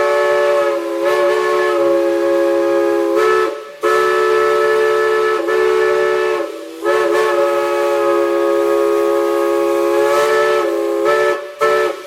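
Multi-chime steam whistle blowing a chord of several notes in long blasts, with brief breaks about a third and halfway in, and a short toot just before it stops.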